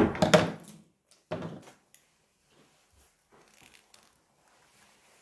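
Close-up handling noise of objects being moved: a loud clatter of knocks and rustles at the start, a shorter one a second later, then only faint scrapes.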